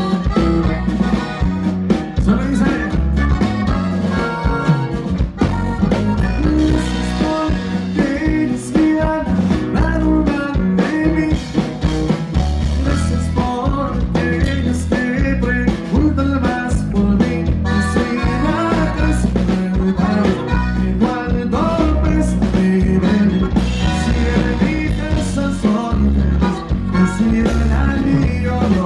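Live band playing a corrido, loud through the stage PA: guitars and electric bass over a steady beat, with a singer.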